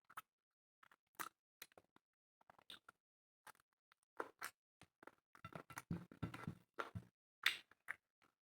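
Eating sounds of chicken and rice, close to the microphone: scattered short smacks and clicks of chewing. They come thick and fast about five to seven seconds in.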